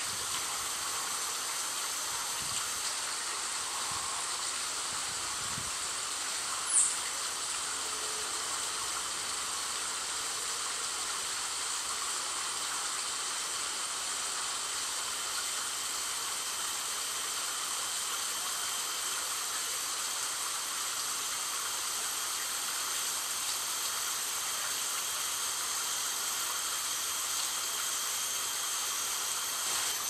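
Water trickling steadily over a stone fountain ledge, an even hiss. About seven seconds in, a single short, high bird note falls in pitch.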